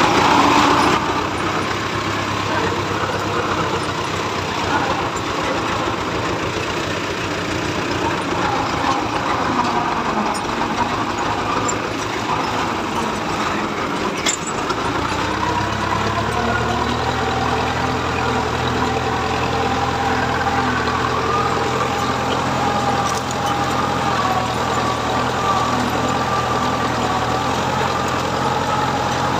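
T-40 tractor's air-cooled diesel engine running steadily while pulling a three-disc plough. About halfway through its sound changes to a steadier, deeper drone.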